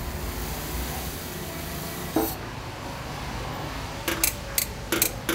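A steady hiss, then from about four seconds in a quick run of sharp clinks as a knife and carving fork strike a stainless-steel counter while a roast chicken is cut up.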